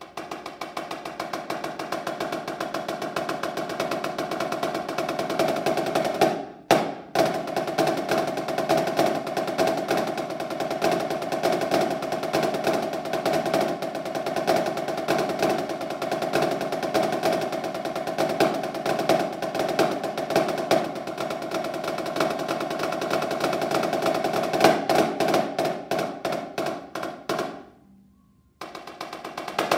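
Snare drum solo played with sticks: long runs of very fast rolls and rudiments, broken by a brief stop about six seconds in. Near the end the playing opens into separate accented strokes, stops for a moment, then starts again.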